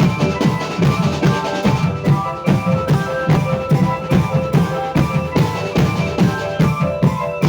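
Music with a steady, quick drum beat and a melody held over it.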